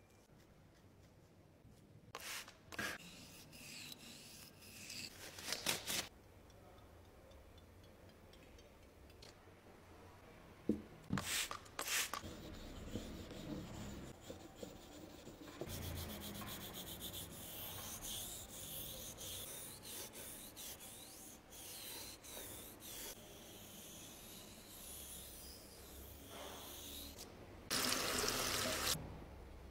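Sharpening stones rubbed face to face, a gritty scraping as a small stone is worked back and forth over a larger whetstone to lap it flat. Near the end, tap water runs loudly over a stone for about a second.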